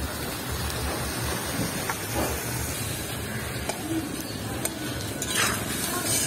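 Masala of tomato, chilli and spices sizzling in a metal karahi while a flat metal spatula stirs it, a steady hiss with a few light scrapes.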